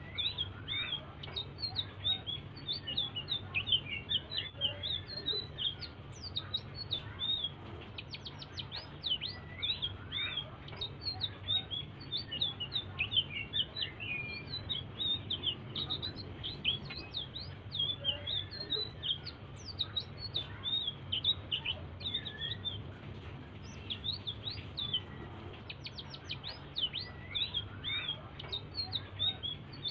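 Selendang biru songbird singing its soft, chattering song, a continuous stream of quick high chirps and short whistled notes, over a low steady hum. It is the kind of soft song played as a lure to set other songbirds singing.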